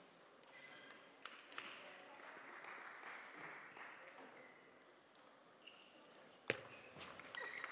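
Table tennis ball clicks: a couple of light taps early, then a sharp crack about six and a half seconds in as the ball is struck on the serve, followed by quicker clicks of the rally, all over a quiet hall murmur.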